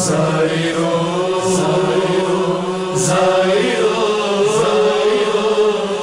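Male voice chanting an Urdu noha lament in long held notes over a steady hummed backing drone, with a short hissing accent about every one and a half seconds.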